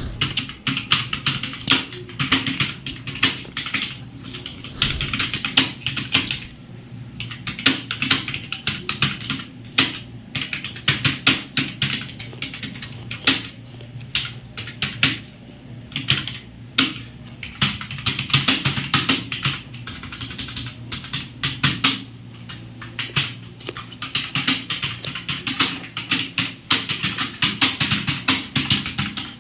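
Fast, continuous typing on a computer keyboard: a dense, irregular run of key clicks during a timed typing-speed test.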